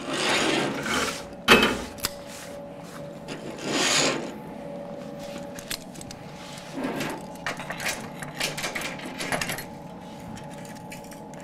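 A metal clamp being handled and fitted onto steel workpieces on a steel welding table: scraping and rustling, a sharp metal clack about a second and a half in, and a run of small clicks later as the clamp is set.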